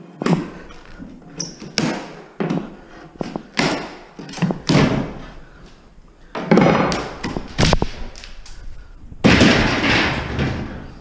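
Repeated knocks and bangs of a steel pry bar working loose a maple-spindle wooden stair rail, with two longer scraping stretches about six and nine seconds in as the wood is levered apart.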